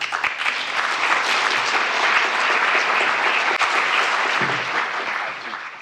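Audience applauding, a dense, steady clapping that eases off at the very end.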